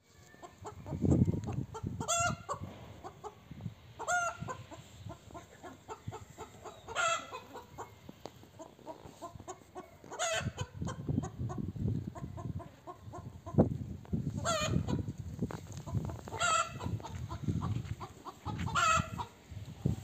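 Chickens calling in the yard, short squawking calls every two to three seconds.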